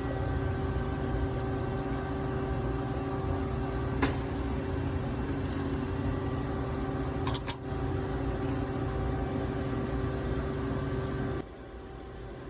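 Steady machine hum with a constant low tone, broken by a single sharp click and later a quick double click. The hum drops to a much lower level about a second before the end.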